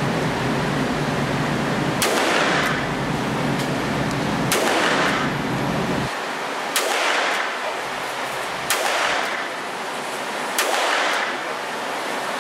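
Smith & Wesson Model 28 .357 Magnum revolver fired five times, deliberately, about two seconds between shots. Each sharp report is followed by a short echo off the walls of an indoor range.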